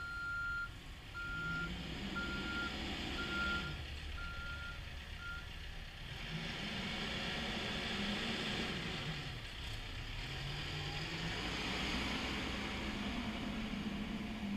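CAT 420F backhoe loader backing up: its reverse alarm beeps six times, about once a second, then stops as the machine stops reversing. Its diesel engine runs underneath, its pitch rising and falling as the operator works it harder in the second half.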